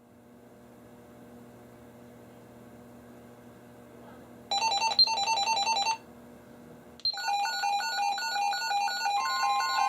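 Weather radio receiver on a NOAA Weather Radio channel: faint static hiss and hum, then about four and a half seconds in the radio's electronic alert alarm starts, a rapid warble of alternating beeps. It stops for about a second, then resumes, and near the end a steady tone joins it, typical of the broadcast's 1050 Hz warning alarm tone that precedes a new warning.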